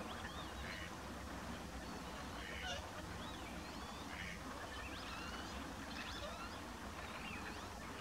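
A flock of dabbling ducks, wigeon and teal, calling: many short whistles and calls, some rising and falling, overlapping one after another over a steady low background hum.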